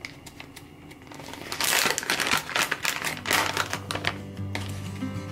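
Plastic pouch of sheet face masks crinkling and crackling as hands handle it, loudest in the middle seconds. Soft background music comes up near the end.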